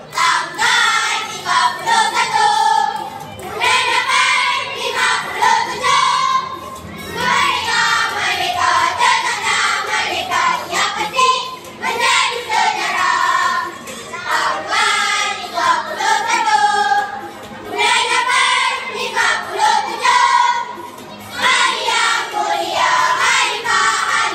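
Children's choir singing, phrase after phrase with short breaks between.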